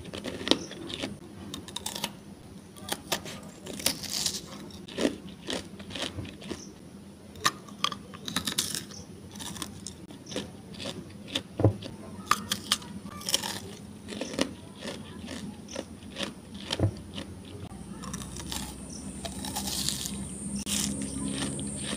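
Close-miked mouth sounds of biting and chewing colourful ice and candy pearls: sharp, irregular crunches and clicks, turning denser in the last few seconds.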